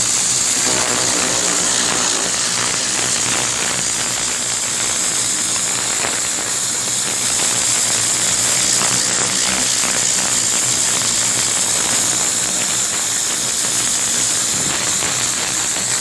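High-pressure washer running steadily, its water jet hissing as it sprays, over the steady hum of its motor.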